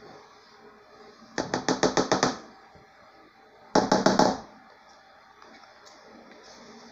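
A plastic mixing bowl, held upside down over a metal cake pan, is knocked quickly over and over to shake out the last of the cake batter. There are two quick runs of about eight and six sharp knocks, the second coming a second and a half after the first.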